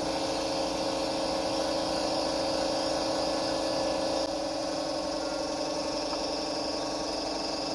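Pump motor running steadily with an even hum of two steady tones. It keeps switching itself on, a sign of a leak in its line that the owner has checked and sealed but not cured.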